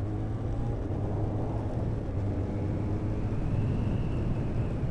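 Kawasaki ZX-14 motorcycle's inline-four engine running steadily at low revs on a cold engine while riding slowly, with wind noise over the microphone.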